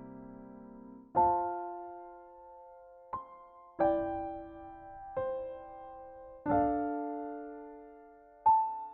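Background music: slow, gentle piano (or electric piano), chords and single notes struck every second or so and left to fade.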